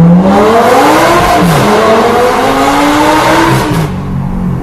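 Lamborghini Gallardo LP560-4's 5.2-litre V10 with an Armytrix valved exhaust accelerating hard, heard from inside the cabin. Its pitch climbs, dips briefly about a second and a half in, climbs again, then falls away near the end as the throttle eases.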